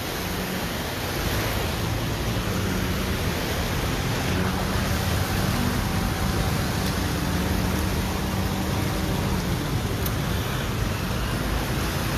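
Steady rushing and splashing of floodwater on a flooded street, with a low engine hum from vehicles wading through it in the middle.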